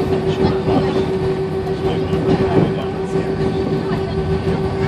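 Airbus A320 cabin noise during taxi: a steady hum from the engines and air conditioning, with one constant mid-pitched tone, under faint passenger chatter.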